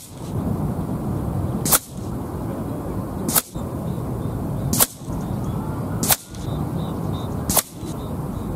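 Five shots from a sub-12 ft-lb pre-charged pneumatic air rifle, each a short sharp crack, spaced about one and a half seconds apart. Steady wind noise rumbles on the microphone beneath them.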